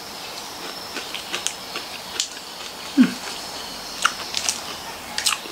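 Crunching and chewing of a crispy nut-and-caramel snack, close to the microphone: irregular crisp crackles and clicks, with a short low falling sound about three seconds in.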